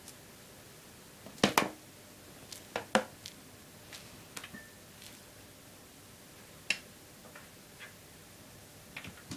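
Scattered light taps and clicks of cats' paws and claws on a glass tabletop, irregular, the loudest a quick double tap about a second and a half in and another near three seconds.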